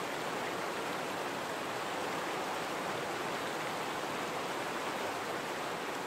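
Fast-flowing stream rushing over rocks: a steady, even whitewater rush with no changes.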